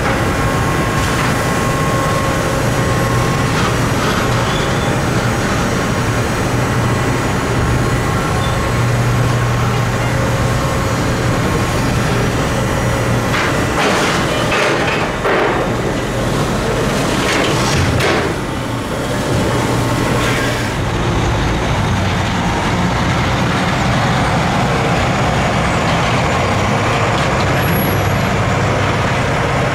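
Sugar mill cane-unloading machinery running: a loud, steady mechanical din with a constant low hum as cut sugar cane spills off a truck trailer over the rotating feed drums. A few brief louder surges of noise come around the middle.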